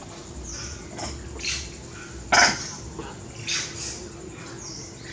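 A few short, sharp animal calls, the loudest about two and a half seconds in, with weaker ones around one, one and a half, and three and a half seconds.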